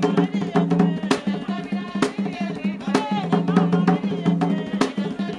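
Traditional tall wooden hand drums playing a fast, driving rhythm, with a heavier accent stroke about once a second, under a melody.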